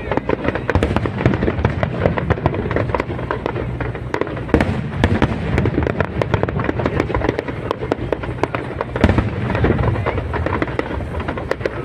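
Fireworks display going off: a dense, unbroken run of sharp crackles and bangs over a low rumble.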